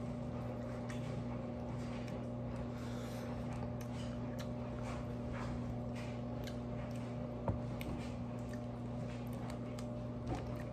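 A person chewing a mouthful of food close to the microphone, with soft wet mouth clicks and a couple of sharper clicks, over a steady low hum.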